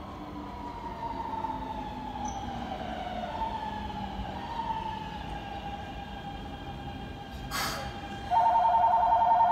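A platform's electronic departure bell starts about eight seconds in: a loud, steady, warbling two-tone ring. Before it, a faint electric whine slowly falls in pitch, and a short hiss of air comes just before the bell.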